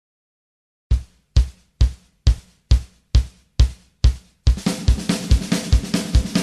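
Opening of a country song: after about a second of silence, eight even drum hits about two a second, then the full drum kit comes in with hi-hat and cymbals and the band begins playing.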